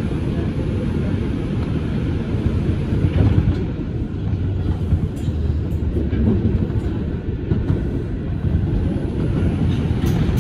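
Bombardier R142 subway car running between stations, heard from inside the car: a steady low rumble of the wheels on the track.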